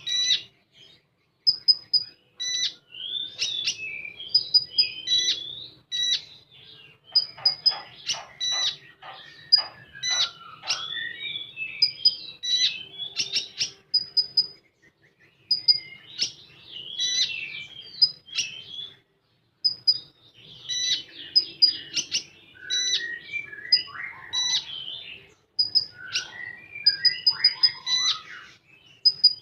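Konin songbird singing a long, rapid song of sharp high chirps and twittering trills in quick bursts, with short pauses between phrases. About a third of the way in comes a fast series of about seven clicking notes.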